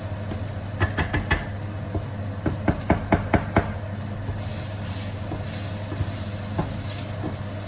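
Cooking utensil knocking sharply against cookware: three knocks about a second in, then a quick run of about six around three seconds in, over a steady low hum.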